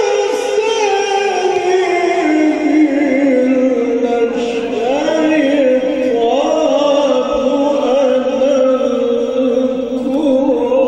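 Male Egyptian religious chanter (munshid) singing solo into a microphone: one long drawn-out melismatic line that sinks slowly in pitch, then breaks into quick wavering ornaments.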